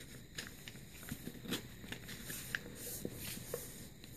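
A folded paper model rustling and crinkling as fingers press and crease its layers by hand, with scattered small clicks and taps.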